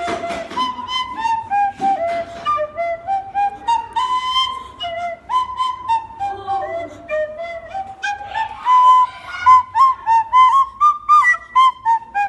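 A plastic soprano recorder blown through the nose instead of the mouth, playing a melody of short separate notes that step up and down.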